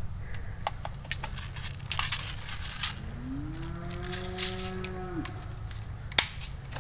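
Footsteps crunching over dry twigs and leaf litter. About three seconds in comes one drawn-out low call, rising at first and then held for about two seconds before it stops, and near the end there is a single sharp snap.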